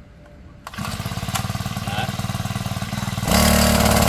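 Small four-stroke petrol engine of a rock drill/breaker starting up under a pull start and running with a steady pulsing beat. About three seconds in it speeds up and runs much louder.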